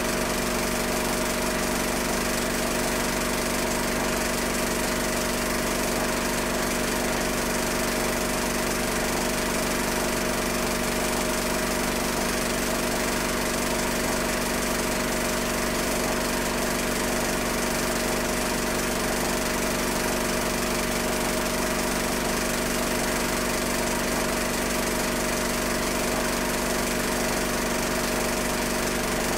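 A small motor running steadily, a constant hum with a few fixed tones over an even hiss, never changing.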